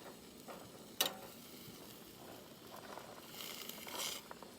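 Cooking sounds at a pan: a sharp clink of a utensil about a second in, then a brief stir or scrape near the end.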